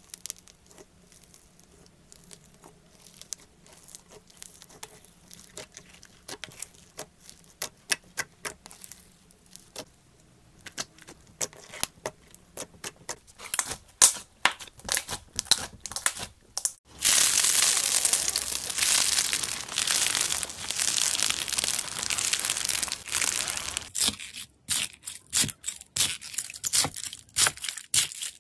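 Slime and foam-bead slime squeezed and pressed by hand: scattered crackling clicks and pops that grow denser, then just past halfway a sudden stretch of dense, loud crinkly crackling lasting several seconds, then scattered clicks again.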